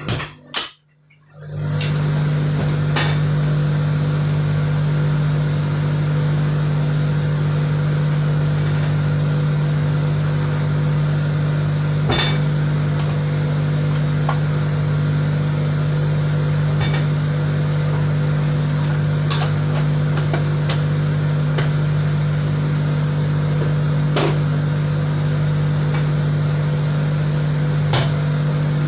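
Steady loud machinery hum of a ship's workshop, with a few sharp metallic taps and clinks from hammer and hole punches on a punch die plate. The sound briefly cuts out about a second in.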